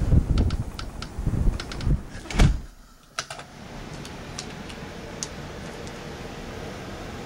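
Strong wind buffeting the microphone in a blizzard, with a few sharp clicks. It cuts off abruptly a little under three seconds in, leaving a steady, quieter hiss.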